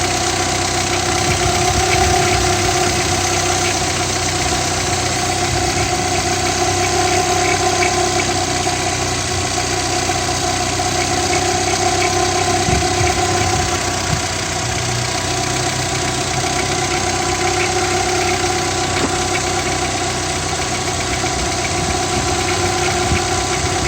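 VW Passat B3 engine running steadily, with a strange, intermittent periodic knock whose cause the owner cannot identify.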